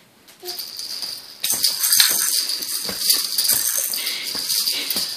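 Hanging rattle toys of a baby's activity play gym rattling and jingling as the baby kicks and hits them, starting faintly and turning into a dense continuous rattle about a second and a half in.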